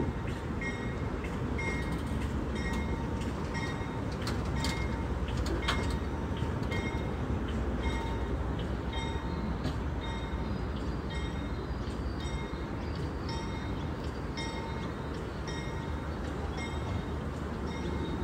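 Indian Pacific's stainless-steel passenger carriages rolling slowly past: a steady rumble of wheels on rail. Short high squeaks repeat less than a second apart, with a few sharp clicks about five seconds in.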